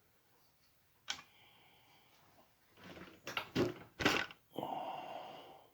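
Clicks and knocks of a small HO scale model locomotive being handled on the track, followed near the end by about a second of steady whirring.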